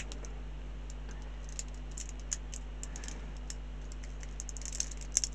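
Small plastic model-kit parts clicking and tapping against each other as they are handled and pressed together, in scattered light clicks that come thicker near the end.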